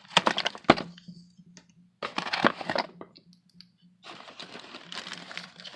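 Plastic packaging of a replacement-parts kit being opened and handled, crackling and clicking in three bursts.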